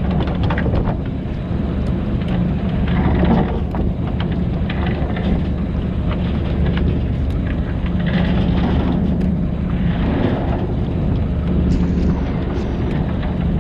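Fishing boat's engine running steadily with a low hum, under a rushing noise that swells a few times.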